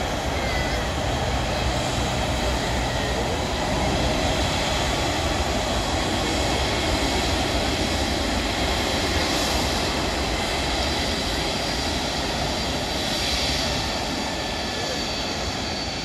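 Jet engines of a Boeing 767 airliner taxiing: a steady low rumble with a thin, high whine.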